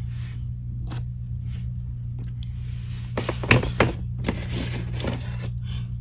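Plastic action figures being handled and lifted off a display, with short clicks and scrapes that come thickest about three to four seconds in, over a steady low hum.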